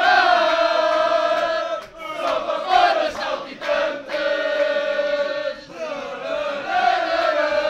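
A crowd of football supporters singing a Benfica chant together, many male voices in unison, in long held phrases broken by short pauses.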